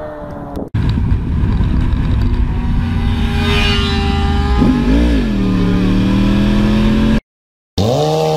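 Sport motorcycle engines with heavy wind noise, recorded from a moving bike. About four seconds in, the engine note rises, dips and settles to a steady pitch. After a brief dropout near the end, a standing sport bike's engine is revved up and down.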